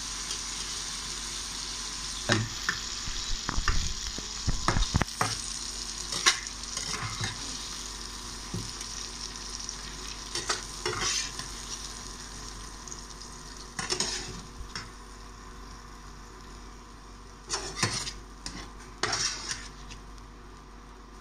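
Chilies, tomato and garlic frying in oil in a stainless steel pan: a steady sizzle that slowly dies down. Metal utensils scrape and clink against the pan in short clusters as the vegetables are stirred and scooped out with a slotted skimmer.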